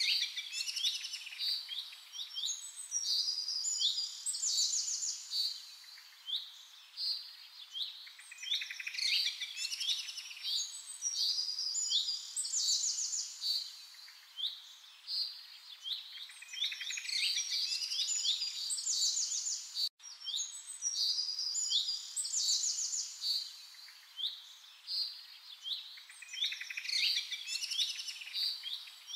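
Songbirds chirping and singing in rapid trills and short repeated notes, high-pitched and continuous. There is a momentary dropout about twenty seconds in.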